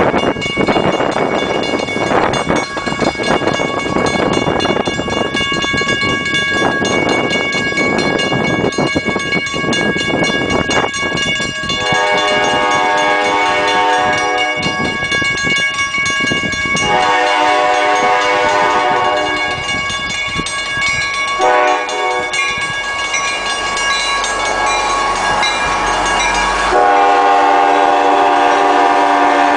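Grade-crossing warning bell ringing steadily, with a loud rushing noise under it for the first dozen seconds. An approaching MBTA commuter train's horn then sounds the crossing signal: two long blasts, a short one, and a final long blast near the end.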